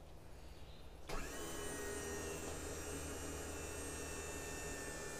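Electric motor of a bus-mounted motorcycle lift, switched on from its wired remote about a second in and running with a steady whine as it raises the platform.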